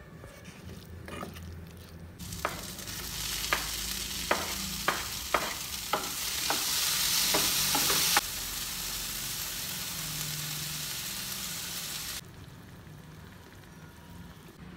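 Vegetables and chicken sizzling in a non-stick frying pan while a wooden spatula stirs them, knocking against the pan about ten times. The sizzle grows louder, eases a little, then cuts off suddenly a couple of seconds before the end.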